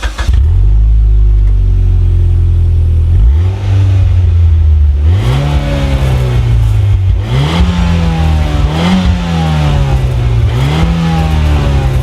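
Mitsubishi Lancer Evolution's turbocharged 2.0-litre inline-four running steadily, then revved up and let fall back about five times in quick succession from about three seconds in.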